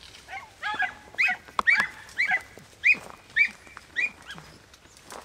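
Podenco hunting hounds giving tongue: short, high yelping barks about two a second, the cry of hounds running a rabbit's trail through cover. The cries grow fainter near the end.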